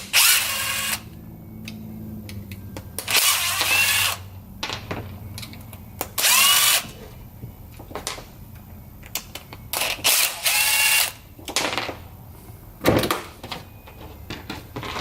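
Impact driver with a T15 Torx bit running in four short bursts, each about a second long and rising in pitch as it spins up, backing out the four screws that hold the oscillating tool's head assembly. A sharp knock comes near the end.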